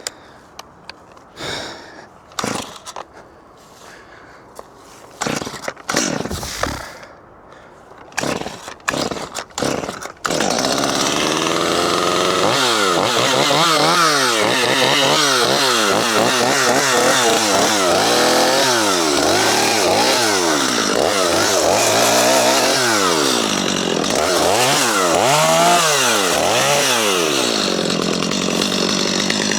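A few short knocks and rustles, then a chainsaw starts about ten seconds in and runs loudly, revving up and down again and again as it cuts logs off tree stumps.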